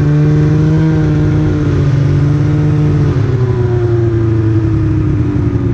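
Snowmobile engine running under way at a steady high pitch, which sinks gradually from about three seconds in as it slows.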